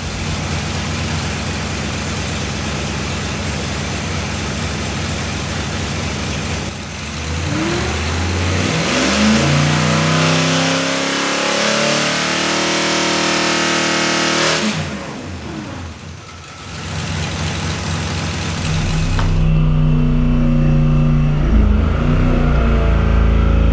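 Holden 308 V8 with a Quadrajet carburettor running on an engine dyno: steady at first, then revved up and held at a higher speed for several seconds while its ignition timing is advanced, then dropping back. From about 19 seconds in it runs deeper and louder.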